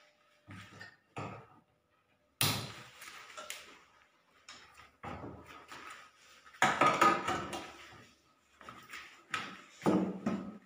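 Knocks and clatters of an aluminium cooking pot and other kitchen things being handled and set down on a gas stove and counter, several separate bangs with the loudest a little past the middle.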